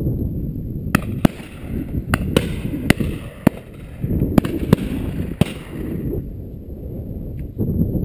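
Several shotguns along a line of guns firing at driven pheasants: about nine sharp, echoing shots in quick succession between about one and five and a half seconds in. A low rumble of wind on the microphone runs underneath.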